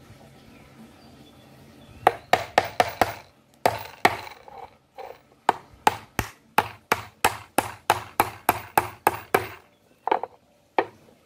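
Hammer driving small nails into a small wooden frame: a quick run of sharp blows, about three a second, beginning about two seconds in, then two last taps near the end.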